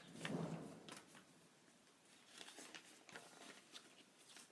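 Faint rustling and crinkling of paper as a folded letter is handled and opened out, a little louder in the first half second.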